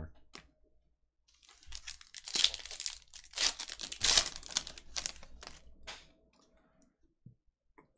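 Foil trading-card pack wrapper torn open and crinkled: a burst of crackling rustle starting about two seconds in and lasting some three seconds, thinning to a few light rustles as the cards come out.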